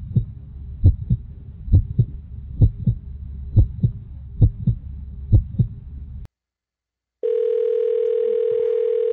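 Heartbeat sound effect: pairs of low thumps, a little under one pair a second, over a low rumbling drone, cutting off suddenly after about six seconds. After a second of silence, a telephone dial tone, one steady tone, comes on near the end.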